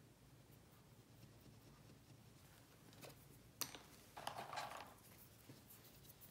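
Near silence broken by one sharp click about three and a half seconds in, then a brief rustle, as a used cotton swab is swapped for a fresh one from its holder.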